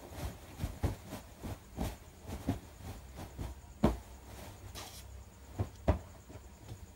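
A cotton pillowcase being shaken out and pulled on over a pillow: fabric rustling with irregular soft thumps and pats, the two loudest about four and six seconds in.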